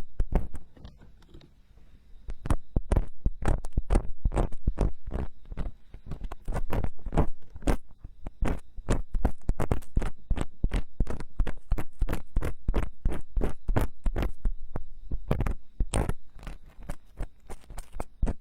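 Tools scraping and picking inside a silicone binaural microphone ear: quick crackly strokes, several a second, each with a dull, deep bump, pausing briefly about a second in.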